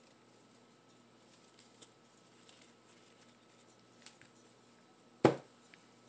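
Faint handling noises of hands-on repotting, soft rustles and light ticks of soil and pots being handled, then one sharp knock a little after five seconds in.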